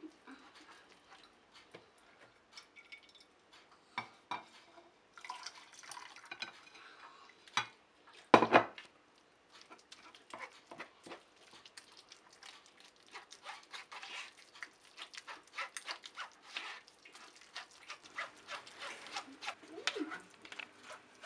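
Metal spoon scraping and clicking against a sieve as soft boiled pumpkin is pressed through it, in many small irregular strokes, with one sharp knock about eight seconds in.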